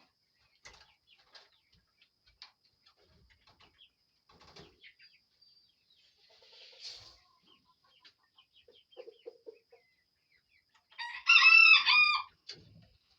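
Chickens making soft, scattered clucks and short calls, then one loud drawn-out call lasting about a second near the end.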